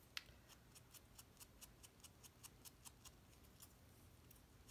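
Near silence with faint, evenly spaced ticking, about five a second, and one sharper click just after the start.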